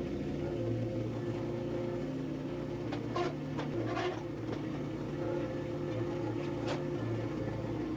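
An engine idling steadily with a low hum, with a few brief sharp sounds about three, four and seven seconds in.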